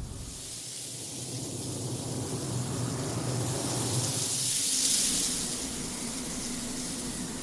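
Drip coffee maker hissing steam as it brews. The hiss swells to its loudest about five seconds in, then eases off.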